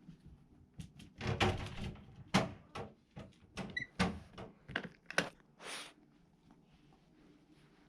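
A quick, uneven run of knocks and thumps in a small room, a dozen or so over about five seconds, then quiet room tone.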